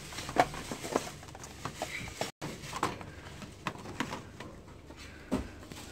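Scattered light clicks and knocks of plastic and metal bakeware being handled on a store shelf, over low background hum. The sound cuts out completely for a moment a little over two seconds in.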